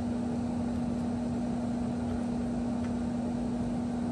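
A steady, even electrical hum holding one low pitch over a soft hiss, with no distinct tool clicks standing out.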